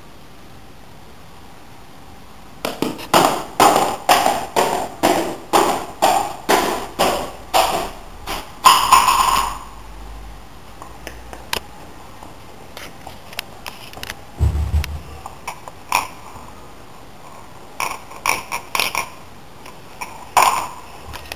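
Marbles running down a marble run built from DVDs, clacking in a regular series of sharp, ringing clicks about two a second, then a short rattle. After that come scattered clicks and a single low thud.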